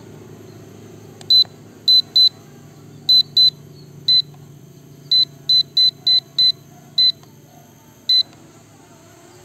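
Drone low-battery alarm: about thirteen short, high electronic beeps at uneven intervals over a faint steady low hum, sounding while the X3 MAX drone lands on a nearly flat battery.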